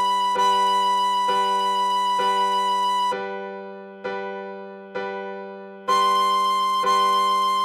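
A tin whistle plays a slow melody in held notes over a keyboard backing that strikes a G major chord about once a second. For about three seconds in the middle the whistle rests and only the keyboard chord is heard, dying away after each strike, then the whistle comes back in.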